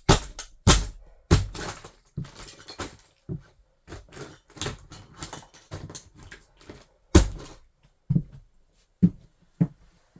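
A toy car being stamped on and crushed under wedge sandals: a run of irregular sharp cracks and thuds, the loudest a little under a second in, at about a second and a half, and at about seven seconds.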